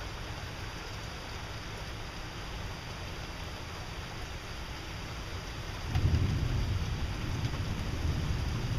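Steady rain falling, with a low rumble of thunder rolling in about six seconds in and carrying on.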